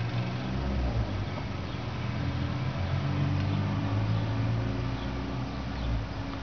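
Car engine running at low revs while the car slowly backs up, a steady low hum.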